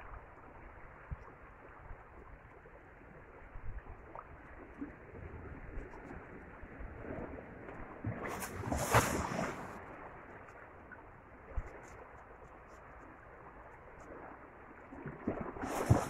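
Small sea waves washing and lapping against shore rocks, with two louder surges of rushing water, one about halfway through and one near the end.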